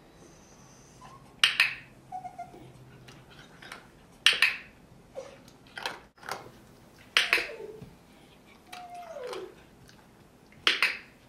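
A dog-training clicker snapping four times, about three seconds apart, each a sharp double click marking the moment the standard poodle offers the head movement being shaped. Between the clicks come short whines falling in pitch from the poodle.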